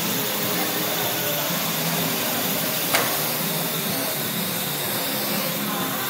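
Parrot AR.Drone quadricopters' electric motors and four propellers whirring steadily in flight, a hiss with a thin high whine over it. A single sharp click about halfway through.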